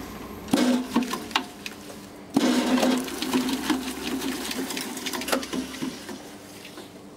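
Old shredder driven by a repulsion-start induction motor, clattering and rattling in two loud bursts, about half a second and two and a half seconds in, over a steady hum. Its bearings are worn.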